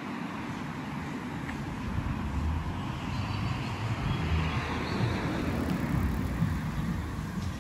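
Steady outdoor background noise of distant road traffic, with uneven low rumbling from wind on the microphone.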